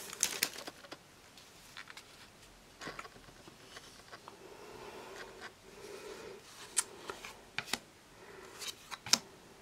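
A small stack of Magic: The Gathering cards handled and slid from one hand to the other: faint rustling of card stock, with a few sharp clicks as cards snap against each other, most of them in the second half.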